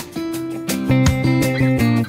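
Background music: plucked guitar notes over a bass line.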